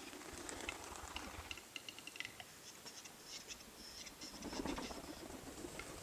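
Faint display song of male capercaillies: scattered dry clicks, some in quick runs, with scratchy notes between. A low rumble swells near the start and again past the middle.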